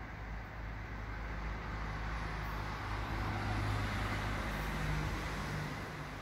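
Vehicle rumble with a steady low hum, swelling about halfway through and easing toward the end.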